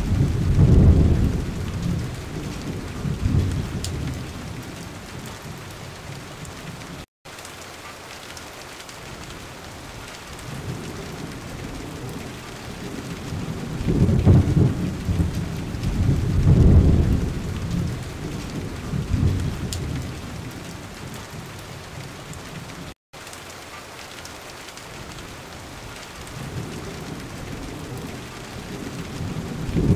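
Steady rain with rolling thunder: a long low rumble at the start, another around the middle and a third near the end, over constant rainfall. The sound cuts out for an instant twice.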